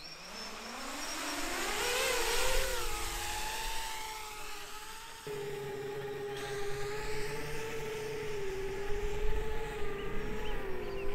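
7-inch FPV quadcopter's four brushless motors and propellers spinning up for takeoff, the whine rising in pitch over the first two seconds or so, then holding a steady, slightly wavering whine in flight.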